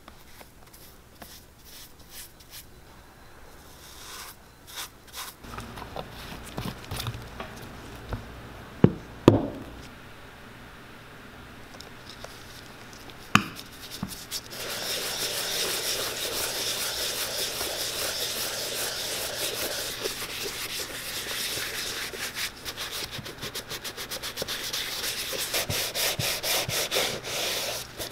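Gloved fingers rubbing leather conditioner into the dry, cracked leather of a 1930s Wilson baseball cleat: a steady rubbing noise that starts about halfway through. Before it come quieter handling sounds and a few sharp knocks.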